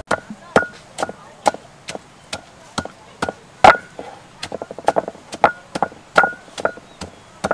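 Wooden pestle pounding salt, garlic and red chilies in a mortar, a steady run of dull strikes about two a second. Some strikes give a short ringing note from the mortar.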